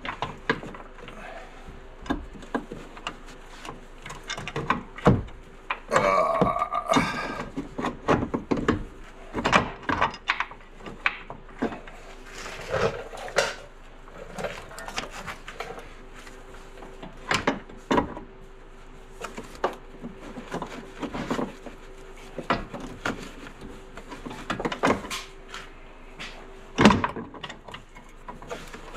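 Irregular metal clanks, taps and scrapes as a new upper control arm and its pivot bolt are worked into place in the front suspension, with a short squeak about six seconds in.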